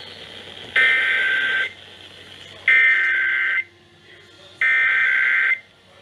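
Emergency Alert System SAME header tones from a radio's loudspeaker: three buzzy digital data bursts, each just under a second long and about a second apart, with low hiss between them. They mark the start of a Required Weekly Test alert.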